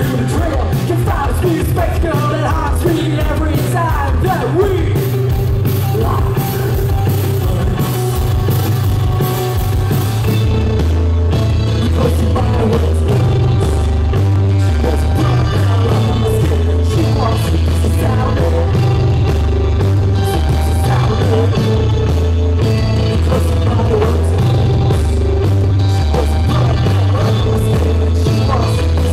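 Live post-punk band playing loud: a singer over electric guitar, bass guitar and drums, with a steady pulsing bass line, heard through the PA from within the crowd.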